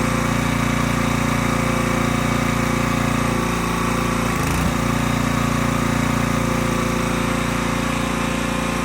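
Engine of a Norwood HD38 hydraulic sawmill running steadily, with a brief dip in its low note about four and a half seconds in.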